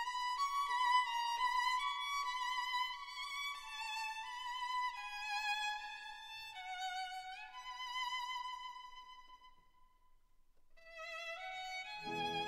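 Background music: a solo violin melody with vibrato that fades out about ten seconds in. A new phrase begins a second later, and lower accompaniment joins at the very end.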